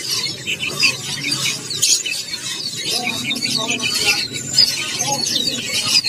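Many caged songbirds chirping and twittering at once: a dense chorus of short, high calls overlapping throughout, over a low background murmur.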